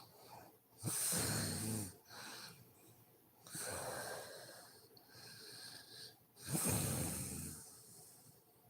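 A sleeping woman snoring: two loud snores of about a second each, roughly five and a half seconds apart, with softer breathing sounds between them.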